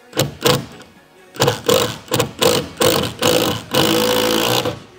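Cordless drill driving a screw into framing lumber, in short trigger pulses and then one steady run of about a second near the end. The screw is pulling a warped roof-framing board into line.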